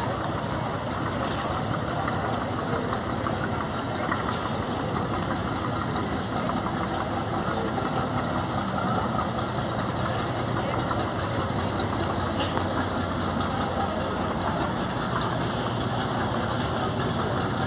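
Small wooden passenger riverboat's engine running steadily as the boat pulls away from its mooring.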